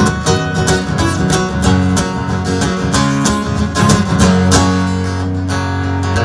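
Acoustic guitar strummed in steady rhythm with held low notes underneath: an instrumental break in a country song, with no singing.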